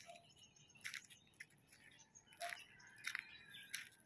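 Faint, irregular crunching footsteps on gravel and dry grass, otherwise near silence.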